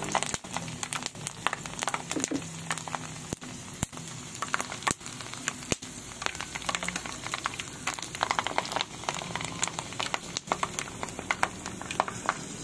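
Dried fish frying in hot oil in a pan: steady crackling with many sharp pops and spits.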